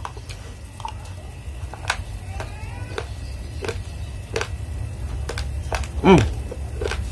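Raw red rice grains crunching between the teeth as they are chewed, with a sharp crisp crunch every half-second to second. About six seconds in, a short hum from the eater falls in pitch and is the loudest sound, over a low steady hum.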